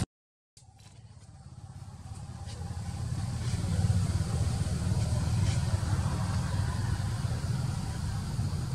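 Steady low rumble of outdoor background noise. It fades in after a brief dropout to silence and levels off about four seconds in.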